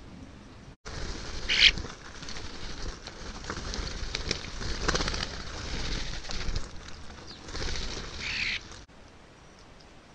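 A flock of common starlings feeding on the ground: a busy mix of harsh chattering calls, clicks and wing flutters, with a louder flurry about one and a half seconds in and another near the end. It starts and stops abruptly, with only faint hiss either side.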